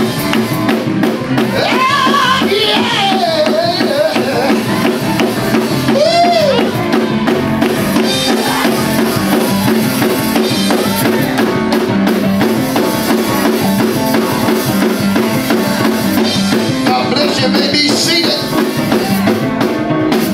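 Live gospel praise-break music: a drum kit driving a fast, steady rhythm under other instruments, with voices calling out over it now and then.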